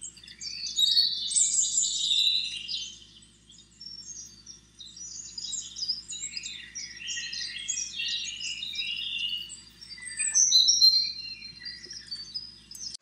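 Songbirds chirping and singing in quick runs of high notes, loudest about a second in and again near the end.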